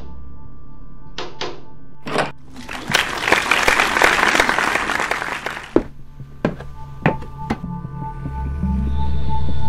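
A low ambient music drone with added sound effects: a few sharp knocks, then about three seconds of noisy rustling and scraping full of clicks, then single knocks. The music swells near the end.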